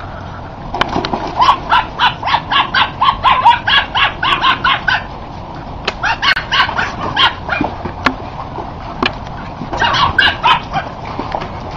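Rapid runs of short, pitched animal calls, about five or six a second, in three bouts: a long one from about a second in, a shorter one past the middle, and a brief one near the end.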